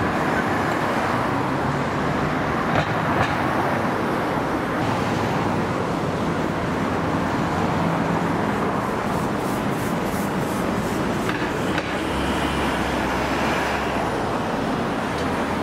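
City street traffic: motor vehicles running past with steady road noise, and a heavier vehicle's low engine rumble about twelve seconds in.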